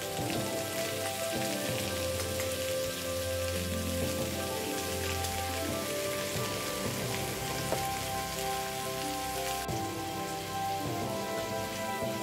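Raw chicken pieces sizzling in hot oil and onions in a stainless steel pan: a steady, crackling hiss.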